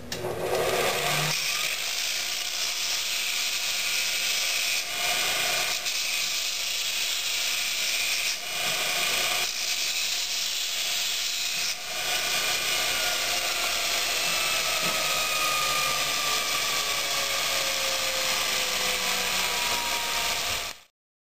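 MULTITOOL belt grinder attachment running with metal pressed against the abrasive belt, removing stock: a steady, harsh grinding hiss. It dips briefly a few times as the work eases off the belt and stops abruptly near the end.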